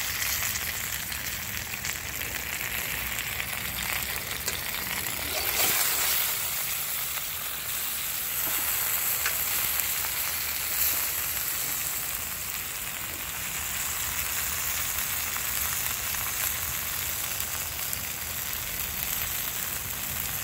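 Chicken drumsticks sizzling in grapeseed oil in a black pan over a fire: a steady frying hiss with fine crackles, briefly louder about six seconds in.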